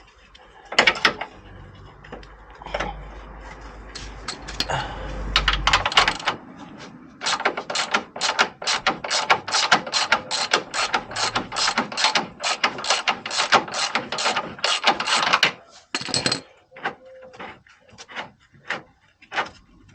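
Hand ratchet wrench clicking, with scattered metallic clicks and clanks at first, then a long even run of about four clicks a second through the middle, thinning out near the end.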